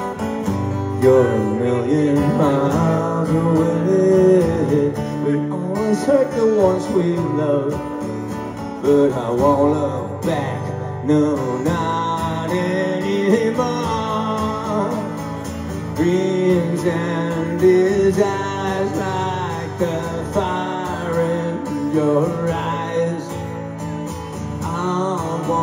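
Live solo acoustic guitar, strummed steadily, with a held, bending melody line sounding above it.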